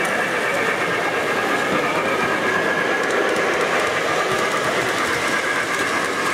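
O gauge model trains running on a three-rail layout: a steady, even rolling noise of wheels and motors on the track.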